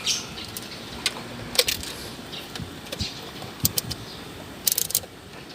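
Scattered sharp clicks and clinks, in twos and one short cluster near the end, over a steady background hum, as parts and tools are handled to jump the starter directly.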